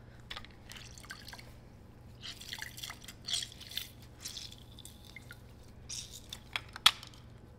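Lemons being squeezed in a citrus juicer: intermittent soft squishing and lemon juice dripping, with a sharp click near the end.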